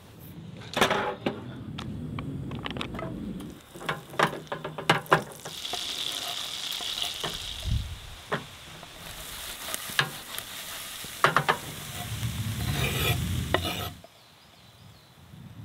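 Sliced mushrooms and chopped vegetables sizzling as they fry in a frying pan, with knocks and scrapes as the ingredients are tipped in from a wooden chopping board and stirred. The sizzling cuts off near the end.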